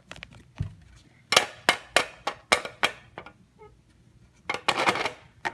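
Sharp plastic taps from a Littlest Pet Shop toy figure being moved by hand: about six evenly spaced taps, then a quick cluster of taps near the end.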